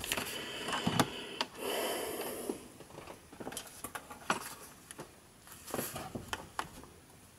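Handling noises as a clamp multimeter and electronic parts are moved about on a silicone work mat: a few light clicks and knocks, with a short rustle about two seconds in.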